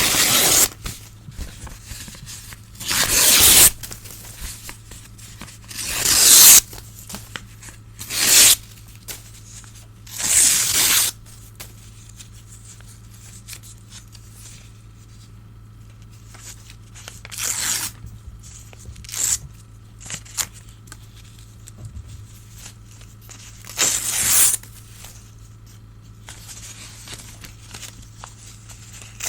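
Old newspaper being torn by hand in separate rips, each lasting about half a second to a second, with pauses between them.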